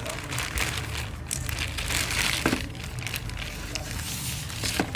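Plastic courier mailer bag crinkling and rustling as it is torn open by hand and the box inside is pulled out.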